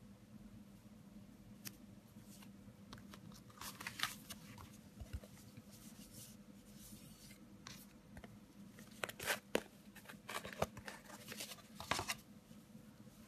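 Plastic packaging crinkling and rustling in short bursts while being handled, mostly about four seconds in and again from about nine to twelve seconds in, over a faint steady hum.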